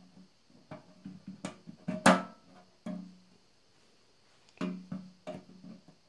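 Background guitar music: a string of plucked notes that ring and fade, pausing briefly about midway.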